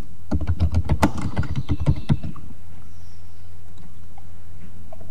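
Typing on a computer keyboard: a quick run of keystrokes lasting about two seconds, then stopping, over a steady low hum.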